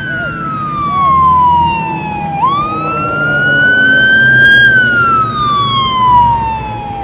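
Airport crash fire truck's siren wailing on the move: a long falling sweep, a quick rise about two and a half seconds in that climbs slowly, then another long fall, over the low rumble of the running truck.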